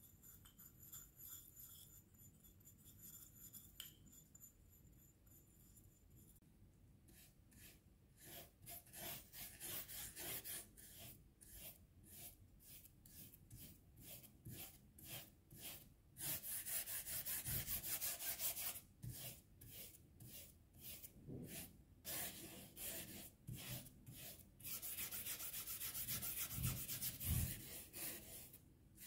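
Stiff bristle brush scrubbing thin oil paint onto oil paper: a dry, scratchy rasp in quick back-and-forth strokes, about three a second. It starts about seven seconds in and gets denser and louder toward the end.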